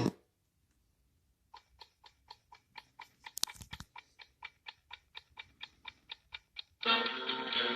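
Sound effect of steady, evenly spaced clicks, about four or five a second like a ticking clock, with one louder crackle partway through, played through a small portable Bluetooth speaker inside a prop rotary cannon. Music starts loudly near the end.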